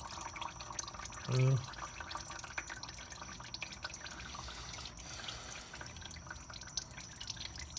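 Engine oil draining from a Kawasaki Ninja 250R's crankcase, trickling and dripping into a drain pan.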